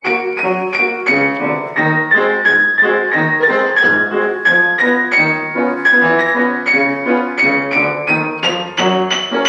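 Upright piano played four hands by two people seated together at the keyboard: a steady run of struck chords and melody notes, each ringing briefly before the next.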